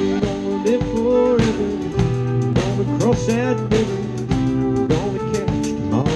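Live country band playing an instrumental break: drum kit, bass and guitar keep a steady beat while a lead line slides up and down in pitch.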